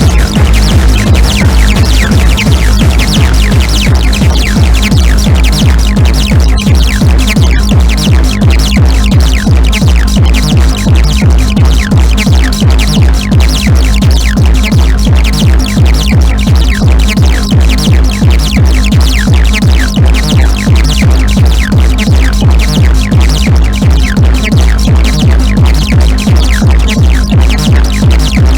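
Loud techno-style electronic dance music from a DJ set: a fast, steady kick drum and bass pulse under repeated short falling high synth sweeps.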